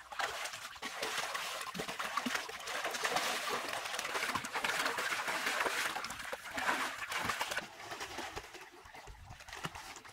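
Water splashing and sloshing in a small concrete swimming pool as two people swim and thrash about. It is loudest in the middle and dies down near the end.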